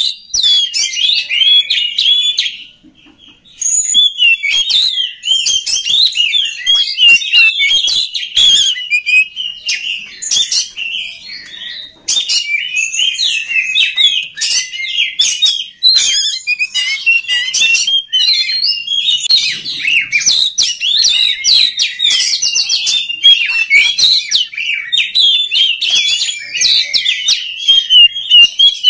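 Oriental magpie-robin (kacer) singing a fast, continuous stream of varied chattering and whistled notes, with a short pause about three seconds in.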